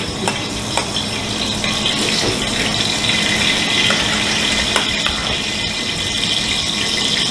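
Curry in a pan over a gas burner on a commercial range, giving a steady sizzling hiss that swells slightly about two seconds in, over a steady low hum, with a few light clicks of a utensil against the pan.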